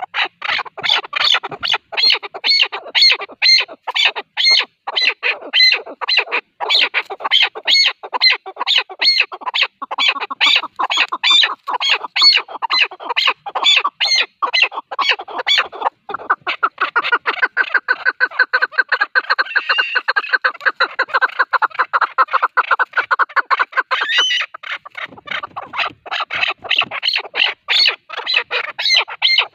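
Chukar partridge calling: a long run of short repeated chuck notes, about three to four a second, turning into a faster, denser chatter about halfway through before the evenly spaced notes return near the end.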